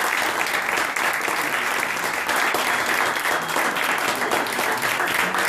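Small audience applauding steadily, a dense patter of hand claps.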